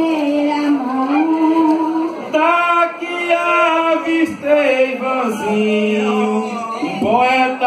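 A singer chanting a verse through a microphone and PA, holding long notes that slide between pitches, with no drums.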